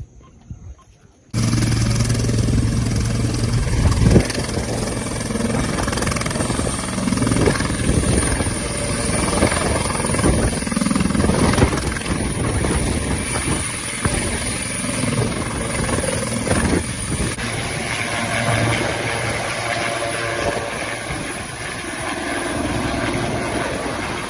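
Helicopter running close by: a steady high turbine whine over a dense rumble of engine and rotor, starting suddenly about a second in.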